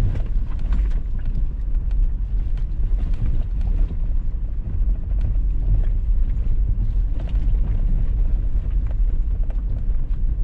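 Toyota 4Runner driving along a muddy dirt road: a steady low rumble of engine and tyres, with scattered light knocks and clicks.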